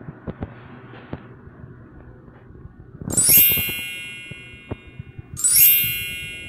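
Bright bell-like chime rings out twice, about three seconds in and again near the end. Each starts with a quick upward shimmer and fades over a second or so, over a low steady hum with scattered small clicks.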